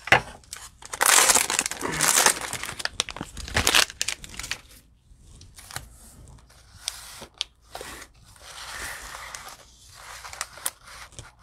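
Plastic cello wrapper of a trading-card pack being torn open and crinkled, loudest for a few seconds near the start. After that come lighter rustling and small clicks as the cards and packs are handled.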